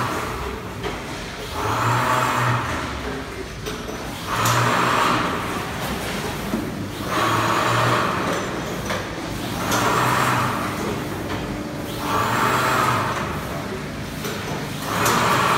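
Grain and nut weighing and vacuum packing machine running through its cycle: a hiss of air about a second long comes six times, roughly every two and a half to three seconds, each with a click at its start and a low hum beneath, over steady machine running.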